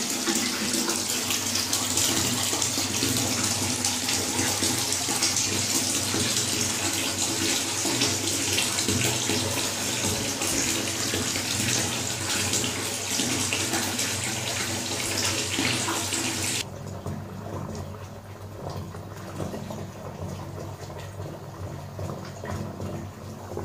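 Bath tap running into a bathtub, a steady rush of water. About two-thirds of the way through it drops suddenly to a much quieter water sound.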